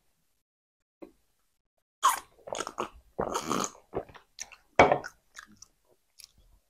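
Close-miked mukbang eating sounds: wet chewing and mouth noises of soft sugar-dusted filled donuts being eaten, with sips from glasses of milk and water. The sounds start about two seconds in and come in irregular clusters of short smacks and clicks.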